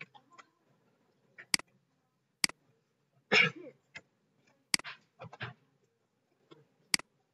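Computer mouse clicking: about four sharp single clicks spread a second or two apart. A short, louder noisy sound comes a little over three seconds in, with a few softer short sounds after it.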